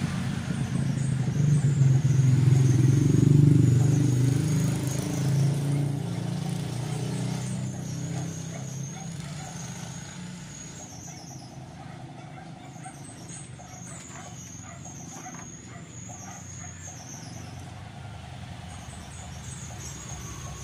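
A low rumble swells over the first few seconds and then slowly fades away. Faint small clicks follow in the second half as the capacitor's wire leads are handled and twisted together.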